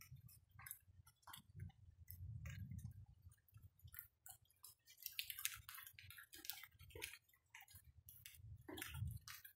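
Rain dripping, with irregular, faint ticks and taps of drops landing close by, over a faint low rumble.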